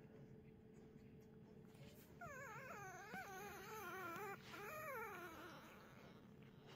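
Newborn whippet puppy whimpering: a wavering, squeaky cry starting about two seconds in, then a shorter second cry that falls in pitch.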